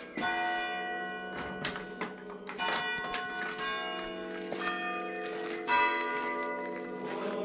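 Church bells ringing in the tower, a bell struck every second or two, their long ringing tones overlapping.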